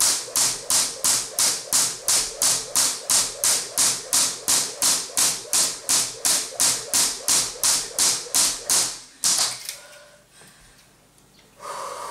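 Crossrope weighted jump rope skipping: the rope strikes the floor in an even rhythm of about three and a half turns a second, then stops about nine seconds in.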